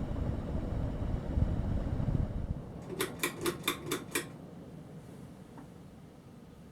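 Hampton Bay Gazebo Plus ceiling fan running, with a low rumble of moving air that drops away about two and a half seconds in. About three seconds in come six quick, evenly spaced clicks, about five a second.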